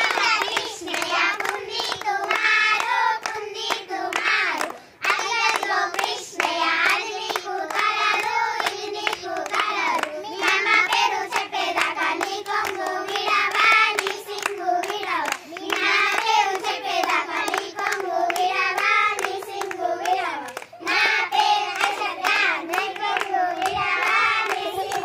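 A group of young girls singing a Telugu Kamudu-game folk song together, clapping their hands in rhythm as they sing.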